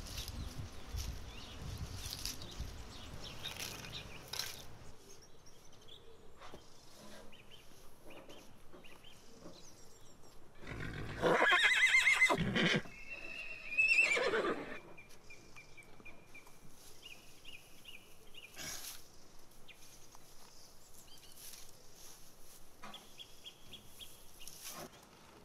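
Horse whinnying about eleven seconds in: a loud, quavering call, followed a moment later by a shorter call that falls in pitch.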